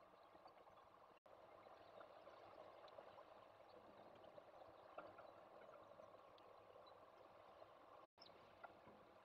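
Near silence: a faint steady hiss with a few faint ticks, broken twice by brief total dropouts.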